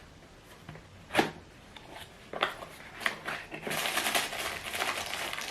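Unboxing handling of packaging: a sharp knock about a second in, a few light clicks, then plastic packaging crinkling steadily from past the middle.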